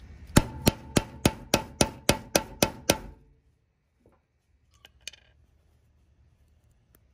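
Hammer striking a metal snap-setting tool about ten times in quick, even succession, each blow with a short ringing note, setting a hammer-on snap fastener through fabric on a wooden board. It stops about three seconds in, followed by a couple of light clicks.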